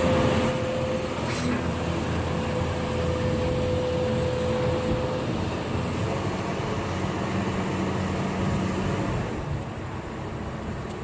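Heavy machine engine running steadily with a low rumble, a thin steady whine over it that stops about five seconds in; the engine note eases slightly about nine seconds in.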